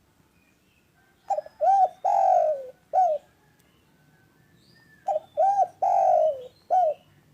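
Spotted dove (derkuku) cooing twice, each phrase four notes: two short coos, a long falling coo, then a short closing coo.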